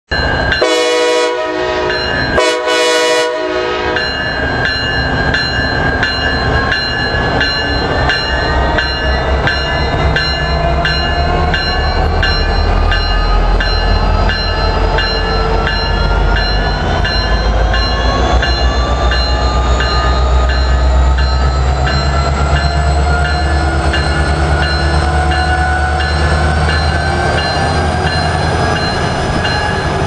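Two horn blasts of a little over a second each from Norfolk Southern SD60E diesel locomotive 911. Then its 16-cylinder EMD 710 diesel engine runs steadily, its pitch slowly rising over several seconds before levelling off.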